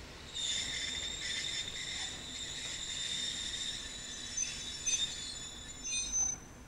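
High-pitched squeal of steel train wheels: several steady shrill tones that start suddenly, hold for about six seconds with brief louder peaks near the end, then stop, as an electric railcar comes slowly into the station's passing loop.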